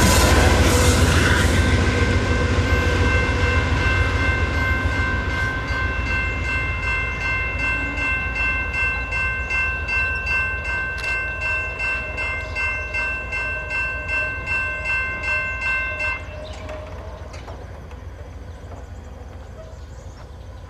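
A GE P42DC diesel locomotive passes at the rear of the train, and its heavy rumble fades as it moves away. Over it, the crossing's General Signals Type 2 electronic bells ring in a steady, rapid pulse. The bells cut off suddenly about three-quarters of the way through, once the gates have finished rising.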